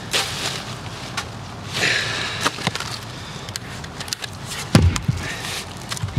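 Sharp cracks and snaps of wood with scattered knocks, and one heavy thud about five seconds in.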